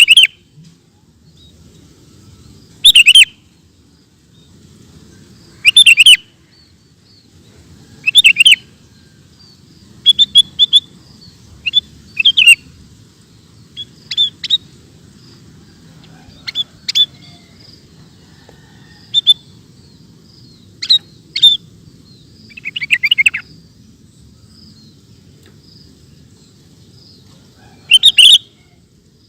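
Sooty-headed bulbul (kutilang) singing in short, loud, bubbly phrases every two to three seconds, with brief pauses between them.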